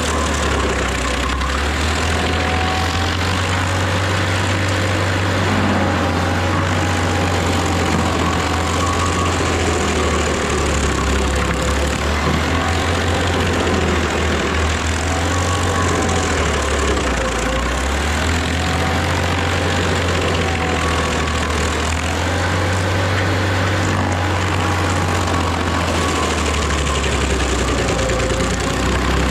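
Rayco RG50 stump grinder's engine running steadily, with a deep hum and a pitch that wavers up and down every few seconds.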